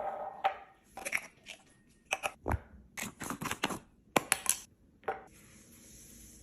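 Hands handling food packaging and containers while restocking a fridge: a quick run of sharp clicks, taps and crinkles, then a faint steady hiss near the end.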